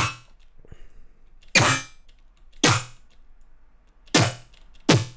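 Short, metallic synthesized hits from a Serum sound-design patch, played one at a time: five sharp hits at uneven intervals, each with a brief ringing tail.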